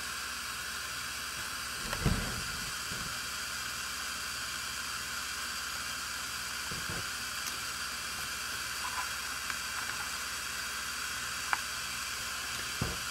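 Small gas torch flame hissing steadily while it heats a thermocouple, with a few faint low bumps.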